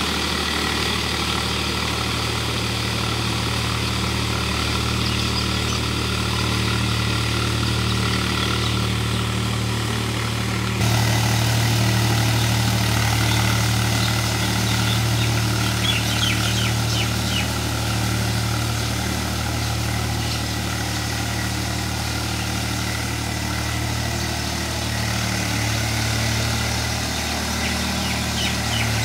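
Swaraj 735 tractor's diesel engine running steadily under load as it pulls an implement through a flooded paddy field, heard from the field edge. The engine gets slightly louder about eleven seconds in.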